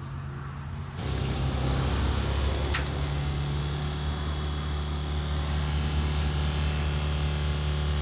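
Gasland portable propane tankless water heater starting up as the tap is opened: a steady low hum comes on about a second in, a quick run of igniter clicks follows about two and a half seconds in, and the burner then runs with a steady low hum.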